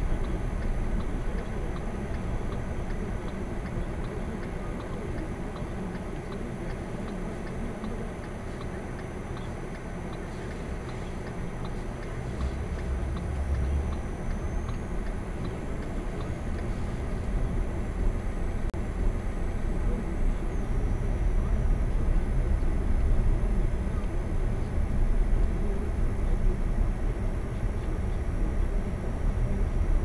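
Car driving on a snow-packed street, heard from inside the cabin: a steady low engine and tyre rumble, a little louder in the second half.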